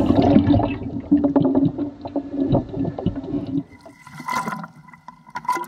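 Water sloshing and gurgling around an underwater camera housing as it breaks the surface, muffled and irregular. After about three and a half seconds it drops to quieter lapping of water at the surface.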